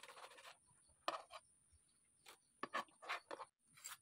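Knife cutting through the crisp fried pastry crust of a martabak telur on a plastic cutting board: a few short, faint crunches, one at the start, one about a second in, and a quick run of them near three seconds.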